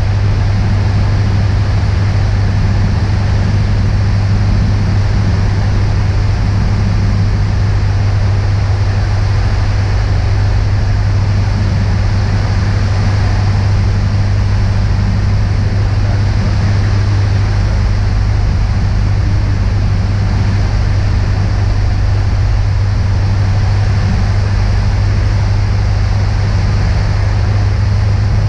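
Cabin noise of a Beechcraft Musketeer in cruising flight: the single piston engine and propeller running steadily as a loud, constant low drone, with an even hiss of noise over it.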